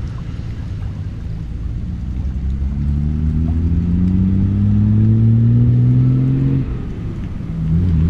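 A motor engine running with a low hum. From about three seconds in its pitch climbs slowly and it grows louder, then it drops back near the end.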